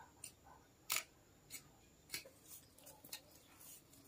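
Hand hoe chopping and scraping into loose soil in a steady run of strokes, a little under two a second, the strongest about a second in.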